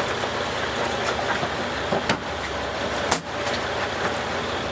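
Boat engine running steadily under a bed of wind and water noise, with a couple of sharp knocks about two and three seconds in.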